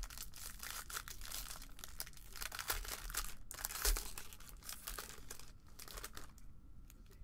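Foil wrapper of a Topps Pristine baseball card pack crinkling and tearing as it is pulled open by hand, with a brief pause about three and a half seconds in; it dies down near the end.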